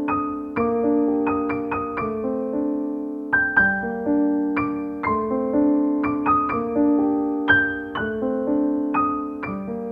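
Background piano music: a gentle melody of single struck notes that ring and fade, over held low notes.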